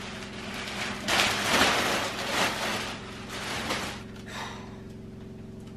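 Clear plastic packaging bag rustling and crinkling loudly as it is pulled off a baby car seat, dying away after about four seconds. Underneath, a washing machine runs with a steady hum, described as going mental.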